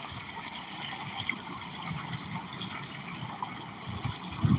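Stream water running steadily over a small hand-built rock dam, a continuous splashing rush of a little waterfall. A brief low sound comes near the end.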